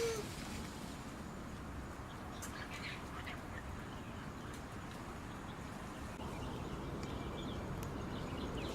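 Steady outdoor background noise with a few faint, brief, high bird chirps scattered through it. A short, louder animal call sounds right at the start.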